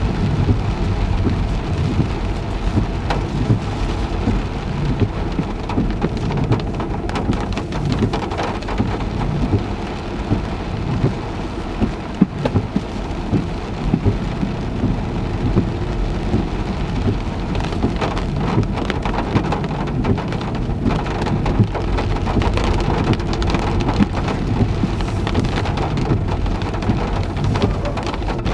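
Heavy rain falling on a car: a dense, steady patter of drops hitting the body, with a deep low rumble beneath.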